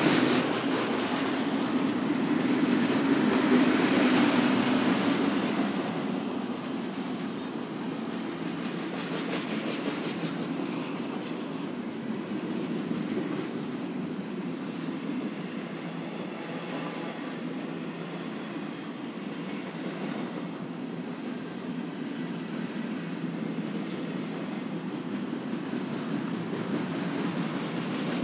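Cars of a BNSF intermodal freight train rolling past: a steady rumble of steel wheels on rail with faint repeated clicks. It is louder for the first five seconds or so, then steadies.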